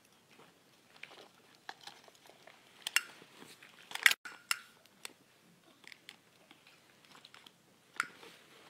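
Scattered light clicks and taps of a hard plastic toy being handled and gnawed by a baby monkey, with the sharpest knocks about three and four seconds in and again near the end.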